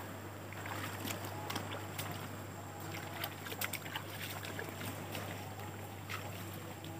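Footsteps on wet, rocky mangrove ground: irregular small clicks and knocks over a faint steady low hum.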